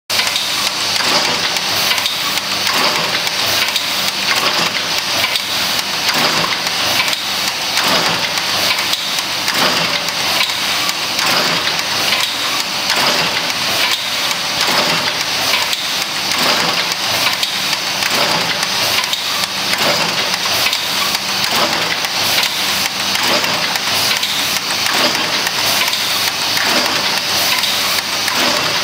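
Theisen & Bonitz Typ 315 VP 303S gathering machine running: a steady, dense mechanical clatter of its sheet feeders and conveyor, made of rapid, even clicks.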